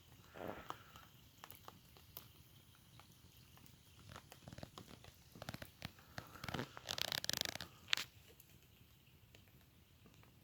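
Faint campfire crackling: scattered small pops and snaps, with a louder rustling burst about seven seconds in.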